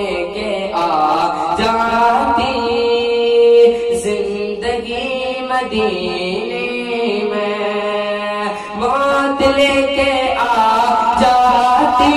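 A male voice singing an Islamic devotional kalam (naat) into a microphone, drawing out long held notes that slide between pitches.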